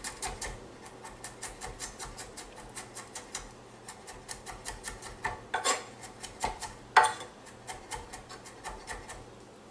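Knife chopping rapidly on a cutting board while mincing garlic: quick, even strokes at about four to five a second, with a couple of heavier knocks partway through, stopping near the end.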